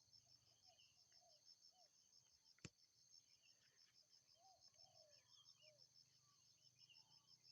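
Faint outdoor ambience of wild birds giving scattered short chirps, over a steady, fast-pulsing high trill. A single sharp click sounds about two and a half seconds in.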